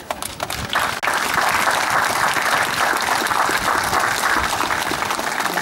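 Audience applauding. The clapping swells over the first second and then holds steady.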